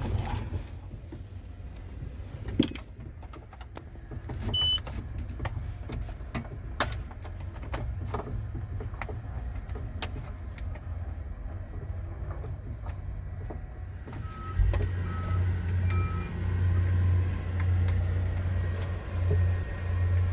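Scattered plastic clicks and knocks as the rubber lever boot and plastic console cover of an excavator's right control stand are worked loose, over the steady low rumble of the excavator's diesel engine running. The rumble grows louder about two-thirds of the way through, and a few short beeps sound near the end.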